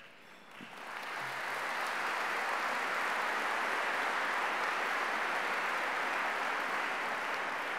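Audience applauding, rising over the first second or two and then holding steady.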